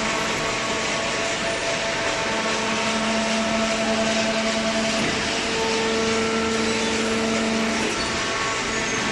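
Hydraulic cardboard baler running: a steady electric motor and hydraulic pump drone with a pitched hum that shifts in strength every few seconds as the load changes.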